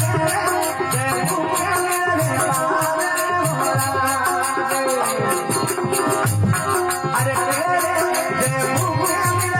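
Rajasthani desi bhajan music: a hand-drum beat with steady jingling percussion and a melodic line over it.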